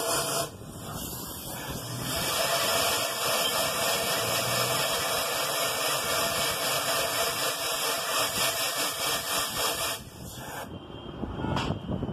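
Compressed-air blow gun hissing as air is blown into a motorcycle engine to drive out the oil left inside. A short blast, a break of about a second and a half, then one long steady blast that cuts off about ten and a half seconds in.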